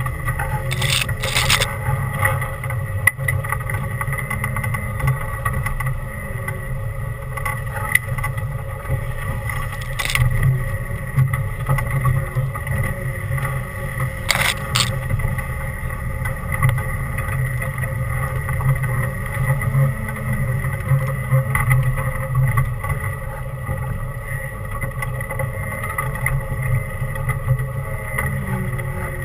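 Off-road 4x4's engine running steadily at low speed as it crawls over a rough dirt trail, heard from inside the open cab, with a few short sharp knocks from the vehicle jolting.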